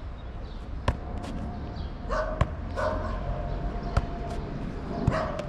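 A football kicked up repeatedly with one foot in a juggling drill: sharp, irregular thuds of foot on ball, roughly a second apart. A dog barks a few times.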